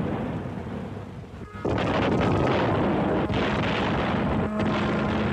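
Field guns firing a royal gun salute, heavy booms in old newsreel sound, the loudest coming in sharply about one and a half seconds in.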